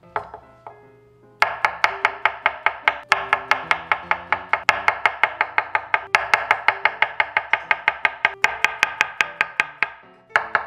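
Chef's knife slicing white mushrooms thin on a wooden cutting board: quick, even knife taps about five a second, starting a little over a second in, with a few brief pauses. Soft background music underneath.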